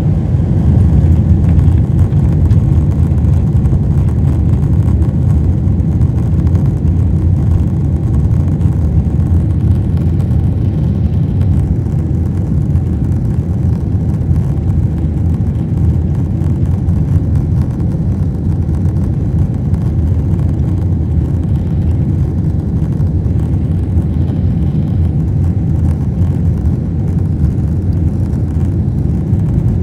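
Boeing 747 heard from inside the cabin: a steady, loud low rumble of its engines and rolling wheels as the jet moves along the runway.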